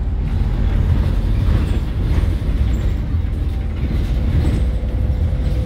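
Steady low rumble of engine and tyre noise inside a moving road vehicle.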